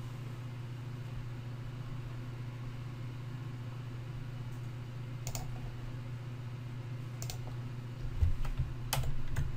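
A few scattered clicks at a computer, over a steady low electrical hum. Near the end come several louder low thumps.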